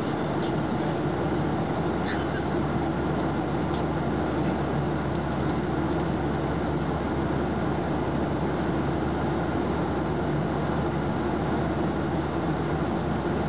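Steady cabin noise inside an airliner in flight: the even rush of the engines and airflow, with a low steady hum underneath.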